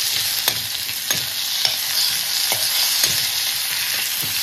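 Onion and Indian borage (sambrani) leaves sizzling as they fry in a pan, stirred so that the utensil scrapes and knocks against the pan about every half second.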